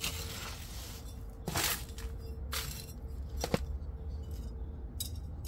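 A metal hand scoop scraping and stirring gritty potting mix with perlite in an aluminium foil tray, in about five separate rustling strokes, then a hand spreading the soil.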